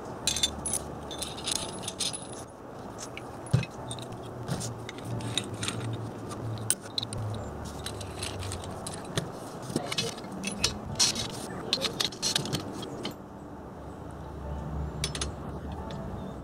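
Steel rods, clamp brackets and fittings of a homemade autobody pulling bridge clinking, knocking and scraping against each other and the square steel tube as they are handled and fitted together. The clinks come irregularly, many short sharp knocks one after another.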